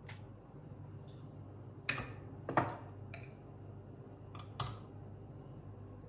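Metal spoon clinking against a glass jar and the filter basket as ground coffee is scooped and tipped into a paper filter: a handful of sharp clinks, the loudest about two and a half seconds in, over a low steady hum.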